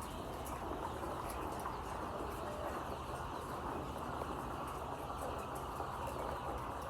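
Many layer chickens calling at once, a steady dense chatter of overlapping clucks and peeps.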